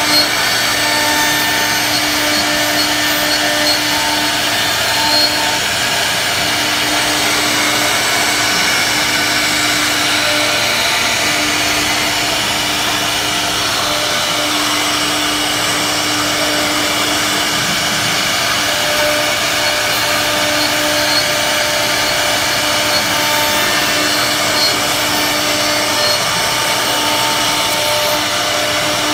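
CNC router spindle cutting a floral relief into a wooden door panel: a steady, loud machine whir with the hiss of the bit chipping wood, and a hum that breaks off and returns every few seconds.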